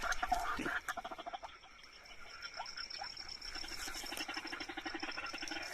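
Animal calls at night: a rapid run of low, frog-like croaks in the second half, over a steady high whine.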